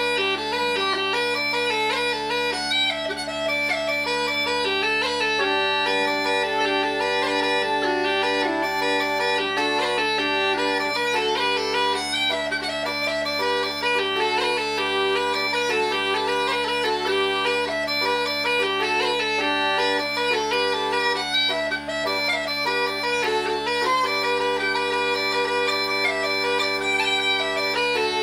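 Uilleann pipes played solo: a melody on the chanter over a steady, unbroken drone.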